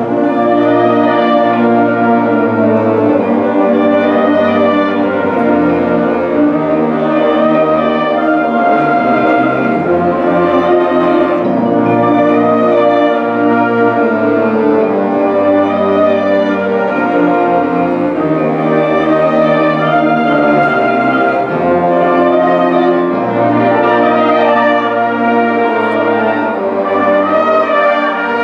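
Wind ensemble playing, brass and woodwinds together in layered held notes over a moving bass line, steady and loud throughout.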